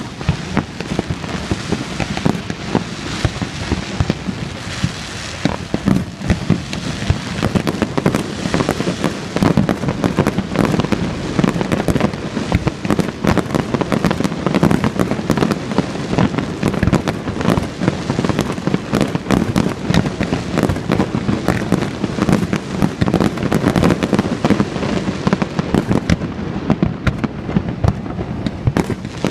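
Fireworks display in full barrage: a dense, unbroken run of rapid bangs and crackling.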